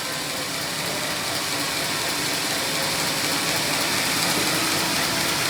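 Homemade sawmill running, a steady mechanical noise with a strong hiss that grows slightly louder.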